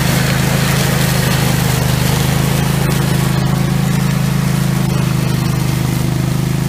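Orec Rabbit RMK150 ride-on inter-row mower running steadily while its side deck mows grass and dry leaf litter: a constant engine drone under the noise of the cutting.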